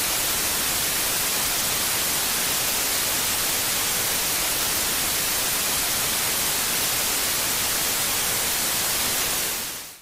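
Television static sound effect: a steady, loud hiss of white noise that cuts off near the end.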